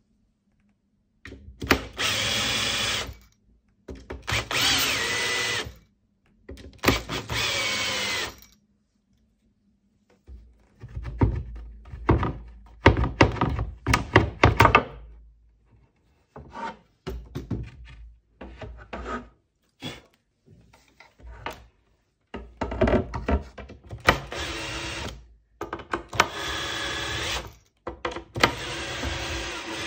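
Cordless drill-driver working the screws of a wooden cabinet top: three short runs of the motor, then a stretch of knocks and clatter as the loose panel and screws are handled, then more runs near the end.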